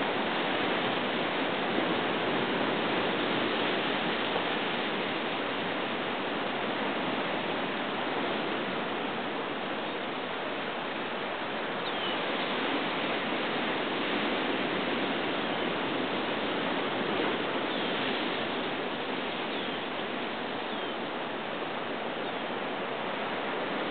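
Steady wash of ocean surf breaking on a rocky shore. A few faint, short, high chirps are heard in the second half.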